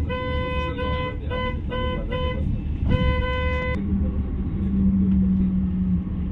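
A vehicle horn honking in a string of short beeps, the last one longer, stopping about four seconds in. The engine and road rumble of a moving bus runs underneath.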